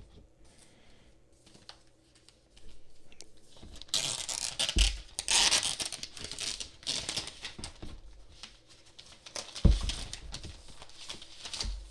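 Thin white protective wrap on a laptop rustling and crinkling as it is pulled away, with the laptop sliding against its cardboard box. There are dull thumps about five seconds in, near ten seconds and near the end as it is handled.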